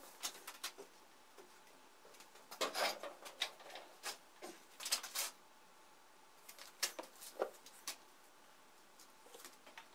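Scattered light clicks and knocks, a few at a time with pauses between, as of small parts and tools being handled.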